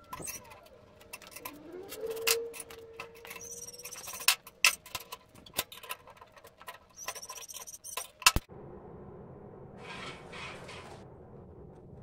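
Hand twisting wrench clinking, knocking and squeaking on a hot steel bar clamped in a vise as the bar is twisted; one squeak slides in pitch early on. A loud knock about two-thirds through, then a steady low noise.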